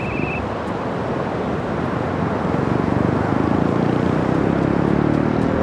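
A motor engine running, getting louder from about halfway through and loudest near the end, over a steady rushing background.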